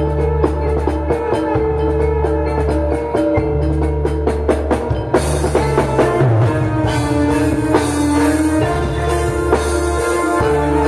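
Javanese gamelan ensemble playing: bronze metallophones struck with mallets in a steady rhythm over kendang hand drums and deep sustained low notes. The sound grows brighter about five seconds in.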